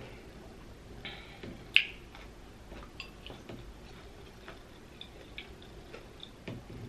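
Close-miked chewing of a mouthful of large pickle: small wet crunches and mouth clicks, with one sharp, loud crunch about two seconds in.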